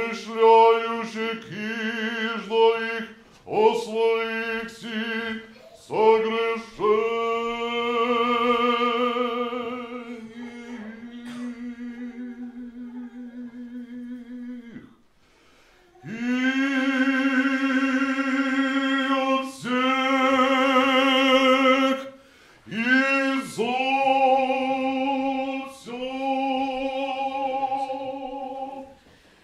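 Mixed choir singing Russian Orthodox liturgical chant a cappella in short phrases and long held chords, with a brief pause about halfway through.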